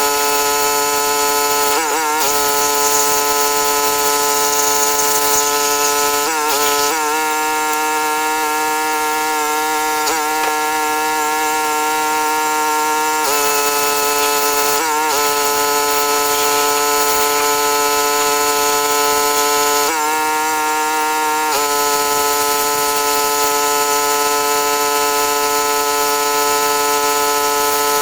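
Pull-start petrol pressure washer running steadily at full speed, its even pitched drone dipping and wobbling briefly four times.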